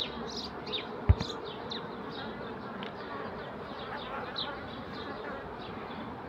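Honeybee colony buzzing steadily from an open hive, with repeated short high chirps over the hum. A single sharp knock about a second in.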